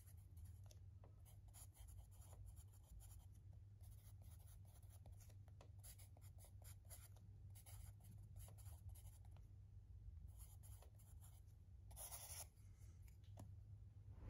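Faint scratching of a pencil writing on a paper notepad: many short strokes as letters are written, with one longer stroke near the end. A low steady hum lies underneath.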